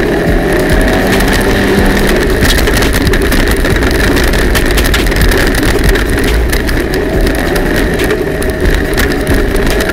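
Polaris RZR side-by-side driving along a rough forest trail: steady engine and drivetrain noise with a steady high whine, and frequent short clicks and knocks as it rolls over the uneven ground.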